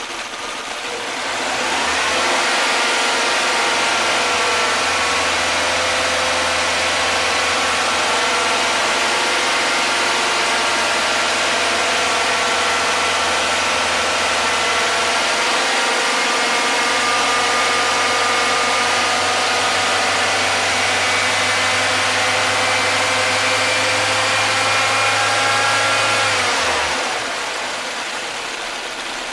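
Nissan engine revved by hand about two seconds in and held at raised speed, then let drop back to idle near the end. The revving runs the water pump faster to push trapped air bubbles out of the freshly refilled cooling system.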